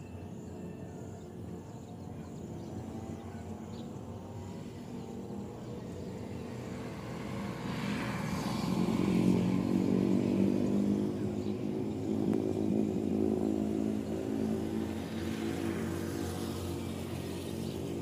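A motor vehicle's engine, most likely a motorcycle, passing nearby: it grows louder over the first half, is loudest around the middle and then fades somewhat.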